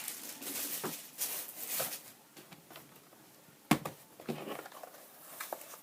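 A laptop being handled and turned over on a work surface: rustling and light knocks, with one sharp knock about three and a half seconds in.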